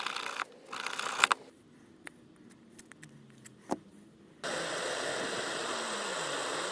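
Small rotary tool grinding a steel knife blade, stopping within the first second. A few light clicks and a sharper tap follow, then the steady whirring grinding starts again abruptly about four and a half seconds in.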